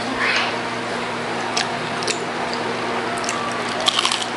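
Close-miked chewing and wet mouth sounds, with a few sharp crunches and a quick cluster of crisp crunches near the end as a hard-shell taco is bitten into.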